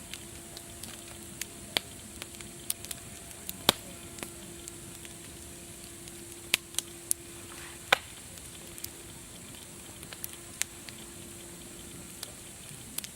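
Wood fire crackling: a steady hiss with frequent irregular sharp pops and snaps.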